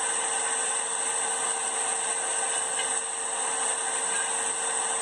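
A forge running with a steady rushing hiss of air feeding the fire, unbroken, with a faint high whine held throughout.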